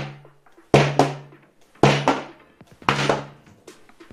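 Heavy thumps with a short low ring, about one a second, each a double hit in quick succession.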